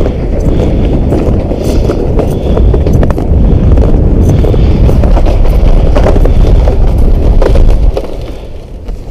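Wind buffeting the microphone as a loud, low rumble that eases off near the end, with a few sharp clicks.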